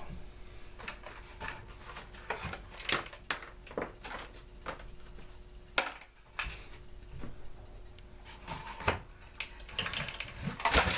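Irregular clicks, taps and clinks of hand tools and small metal parts being handled while a Stihl leaf blower is taken apart, over a faint steady hum.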